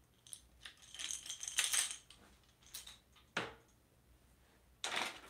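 Rattling and clicking of fishing tackle being handled and rummaged through, with a sharp knock about three and a half seconds in and another short rattle near the end.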